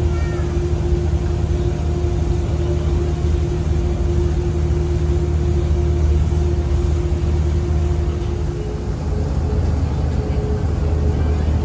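Boat's engine running steadily: a continuous low drone with a steady tone over it that shifts slightly higher about eight and a half seconds in.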